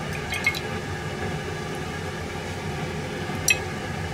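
Metal skewers clinking lightly against a ceramic plate as grilled chicken and liver skewers are turned in soy sauce: a couple of small clicks about half a second in and a sharper clink near the end. A steady background hum runs underneath.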